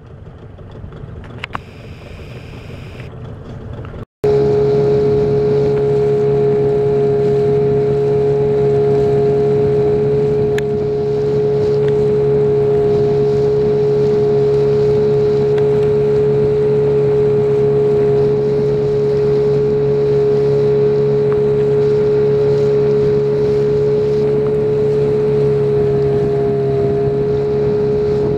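Boat motor running steadily with a constant whine over a low hum. It cuts in suddenly about four seconds in, after a rising rush of wind and water noise.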